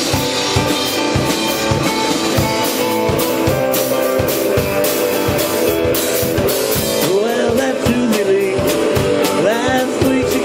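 Live rock-and-roll band playing: guitar over a drum kit keeping a steady beat, with pitch-bending lines, a voice or guitar, coming in about seven seconds in.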